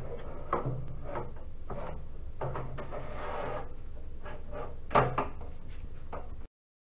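Plastic treadmill accessory tray knocking and scraping against the metal uprights and crossbar as it is set in place: a string of light knocks, a rubbing scrape about three seconds in, and the loudest knock about five seconds in. The sound cuts out abruptly near the end.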